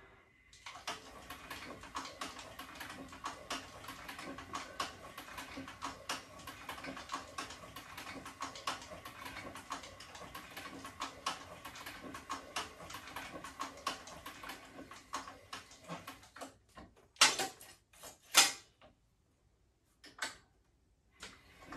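Cowboy CB-4500 walking-foot sewing machine stitching thick leather: a fast run of needle ticks over a steady motor hum, which stops about three-quarters of the way through, followed by two sharp clacks.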